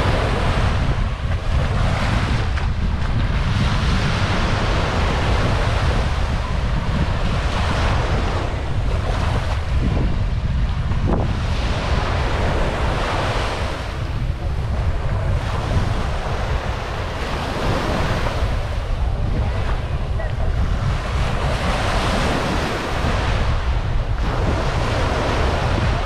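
Small waves breaking and washing up onto a sandy beach, the wash swelling and fading every few seconds, over a steady rumble of wind on the microphone.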